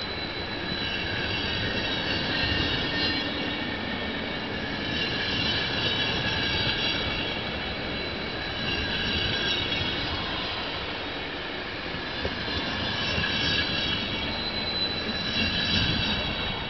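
Passenger coaches of a departing train rolling slowly past, with steady rumble from wheels on rail and a few sharp clicks. A high, several-toned wheel squeal swells and fades in waves.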